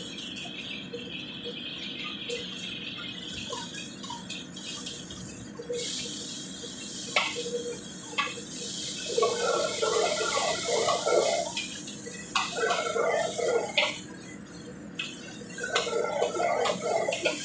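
Stir-frying in a large wok over a high flame: a steady sizzling hiss, a metal ladle clinking and scraping against the wok, and rougher bursts of tossing and sizzling greens from about halfway.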